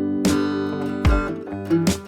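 Background music: strummed acoustic guitar, with a strum stroke roughly every 0.8 seconds.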